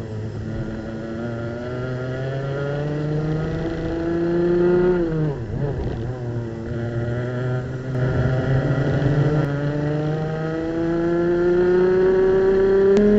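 Racing kart's two-stroke engine heard close from onboard, revving up through its range, then dropping sharply about five seconds in as the kart slows for a corner. It then climbs steadily to high revs again.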